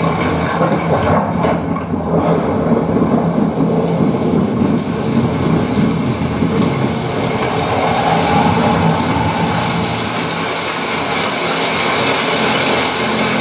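An LG OLED55C9PLA television's built-in speakers playing a nature demo soundtrack of wind and storm rumble, picked up through the room. A dense, steady rushing with no break.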